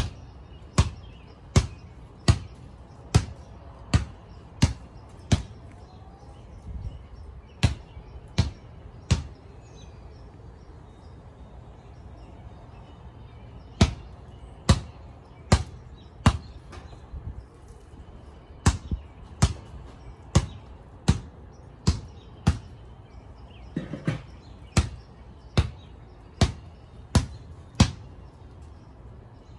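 A basketball dribbled on a concrete driveway: sharp bounces about every three-quarters of a second, breaking off for a few seconds twice.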